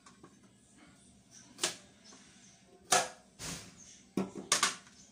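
Kitchen knife cutting a carrot on a cutting board: a few sharp, irregular knocks of the blade hitting the board, the loudest about three seconds in.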